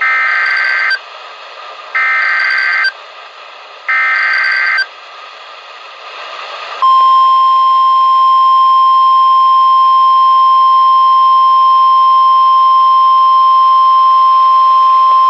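NOAA Weather Radio emergency alert: three one-second bursts of SAME digital header data, about two seconds apart, with radio hiss between them. About seven seconds in comes a single long, steady 1050 Hz warning alarm tone, which signals that a warning-level alert, here a severe thunderstorm warning, is being broadcast.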